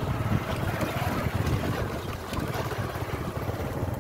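Small engine running steadily with fast, even pulses while the vehicle moves along, with wind buffeting the microphone.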